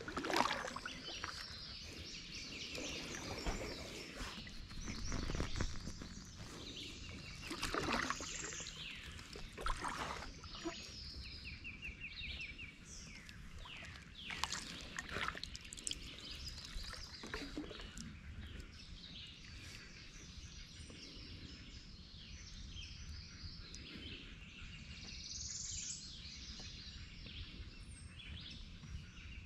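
Several woodland birds singing and calling all through, with overlapping chirps, trills and rising notes. A few brief, louder paddle splashes from the kayak come in between, the loudest just after the start.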